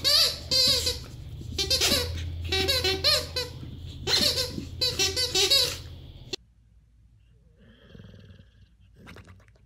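A corgi chewing a pink rubber squeaky toy, giving rapid runs of high, warbling squeaks with short pauses between them. The squeaking cuts off suddenly about six seconds in.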